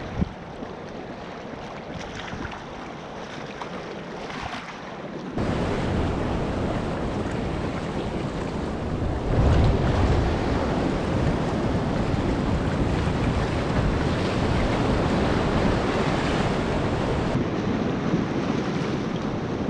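Wind buffeting the microphone and water rushing along the hull of a Hobie Tandem Island sailing kayak as it crosses a surf bar, with waves breaking around it. The noise steps up suddenly about five seconds in and stays loud.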